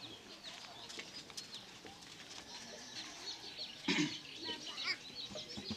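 Birds chirping and calling over a quiet outdoor background, with a louder, short call about four seconds in.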